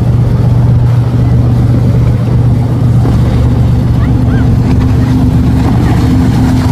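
Engines of a sportfishing boat passing close at speed, a loud, steady low drone; a second, higher engine note grows stronger about four seconds in.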